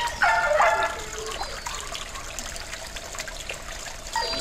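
Small pond fountain trickling and splashing steadily, with dogs barking and yelping in a quick run of calls in the first second and again near the end.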